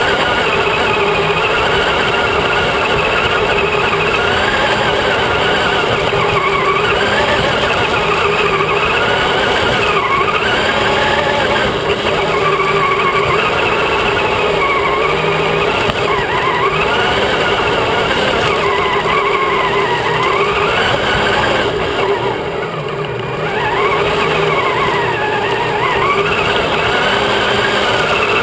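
Radio-controlled truck's motor and gears whining as it drives, the pitch rising and falling over and over with the throttle, easing off briefly about three-quarters of the way through.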